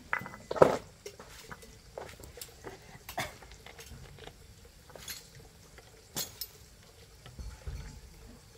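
Scattered light clinks and knocks of tools and metal pump parts being handled during a water-pump repair, the loudest about half a second in.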